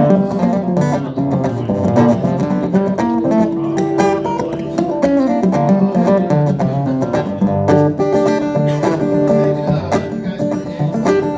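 Acoustic guitar playing an instrumental passage of a country-style song, with picked and strummed notes and no singing.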